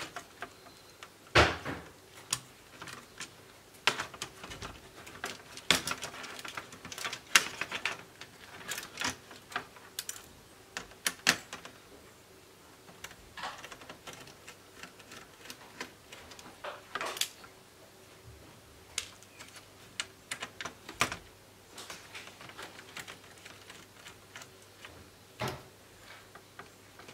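Irregular clicks, taps and rattles of a laptop's plastic casing and small parts being handled with a screwdriver while the speakers are worked free from the base. The clicks come thick in the first half and grow sparser after.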